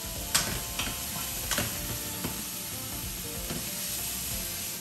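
Sliced smoked meat sizzling in a nonstick frying pan, with a few sharp knocks of the pan and wooden spatula in the first couple of seconds.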